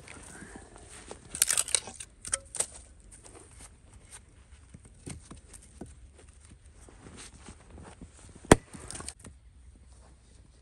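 Scattered rustling and light knocks, then a single sharp axe strike into wood about eight and a half seconds in.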